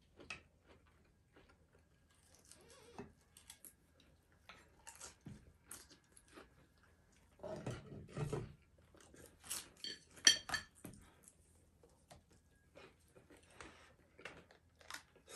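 People eating a noodle meal at a table: chewing, with light clicks and clinks of chopsticks, bowls and a lidded pot, busiest about eight to eleven seconds in, with one sharper clack around ten seconds.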